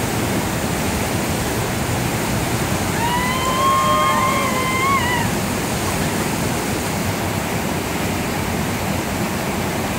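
Whitewater rapids rushing steadily. About three seconds in, a high voice calls out over the water, held for about two seconds.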